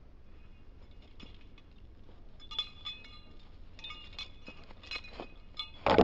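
Irregular light clicking and ticking, some with brief high chirpy tones, then one loud sharp clack near the end as a German shepherd snaps a plastic frisbee out of the air with its mouth.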